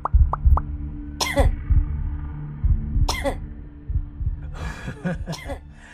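Coughing over background music with a steady low beat. A few quick plopping blips come at the start, then a loud cough about a second in, another about three seconds in, and a cluster of several coughs near the end. Each cough falls in pitch.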